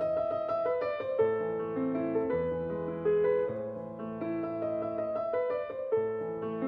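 Background music: a soft piano piece playing a gentle melody over held bass notes.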